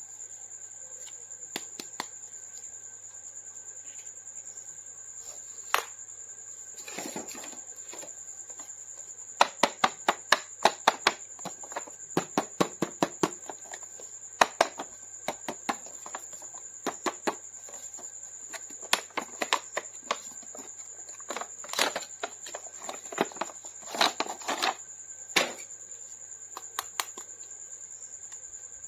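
Sharp plastic clicks and taps, some in quick runs, with a couple of short crinkling rustles: plastic toy packaging and action figures being handled and unboxed. A steady high-pitched whine and a low hum run underneath.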